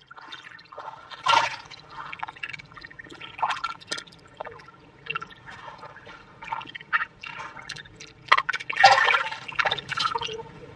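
Catfish wriggling and flapping in shallow water and wet mud: irregular wet splashes and squelches, loudest about a second in and again near the end.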